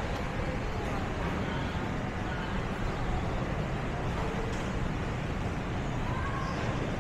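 City street ambience: a steady rumble of road traffic, with faint voices of passers-by here and there.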